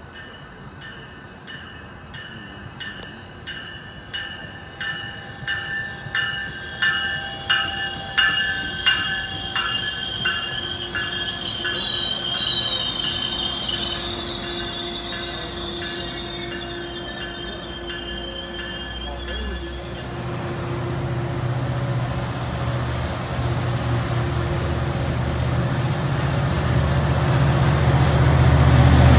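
A train rolling past, its wheels clicking at a regular beat over the rail joints and squealing in a high steady tone. In the second half a locomotive's deep engine rumble comes in and grows louder toward the end.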